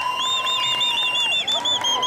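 Audience whistling: several long, overlapping whistles at once, one of them a rapid warble of about six short rising-and-falling chirps a second.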